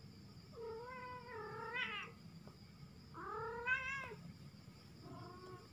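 Kitten meowing: two long, drawn-out meows of about a second and a half each, the second the loudest, then a short, fainter meow near the end.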